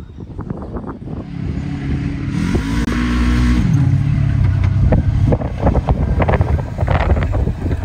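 Polaris RZR 900S side-by-side's engine driving up, under a 1972 Honda N600 body: the revs climb about two seconds in, drop back just before four seconds, then run on at a lower pitch. Rough gusts of wind hit the microphone in the second half.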